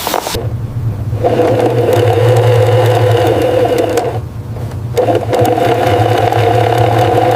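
Electric hair clippers buzzing steadily with a low hum, their higher tone dropping away briefly about four seconds in before it resumes.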